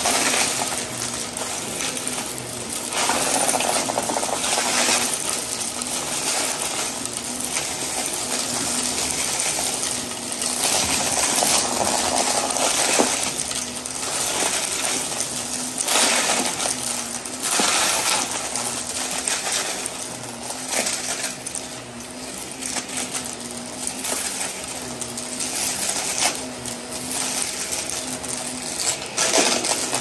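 Shark upright vacuum running over carpet, its motor humming steadily while small hard debris rattles and clinks up into the nozzle and hose.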